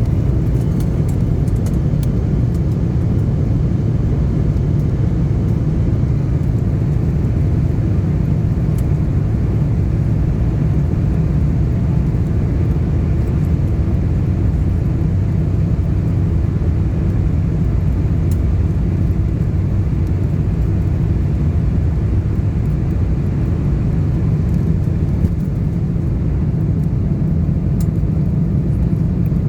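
Steady low rumble of a jet airliner during departure, even in level with a few faint ticks.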